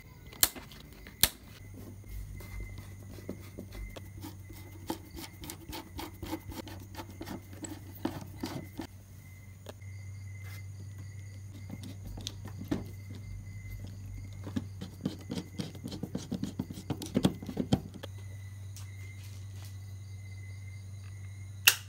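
Two sharp clicks, then a steady low electrical hum from the home-built 12 V LiFePO4 solar power setup, with many small irregular clicks and scraping from handling over it and a faint steady high whine.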